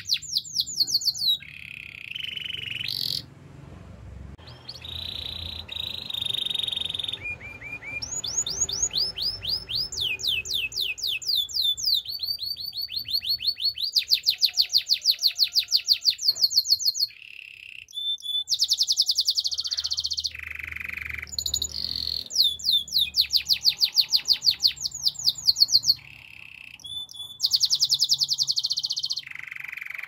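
Domestic canary singing: a string of fast trilled phrases, each a rapid run of repeated sweeping notes, switching to a new phrase every second or two with short breaks between.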